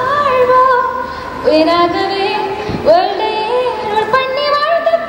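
A woman singing a melody solo into a handheld microphone, amplified. She holds notes with quick ornamental turns and slides up into phrases.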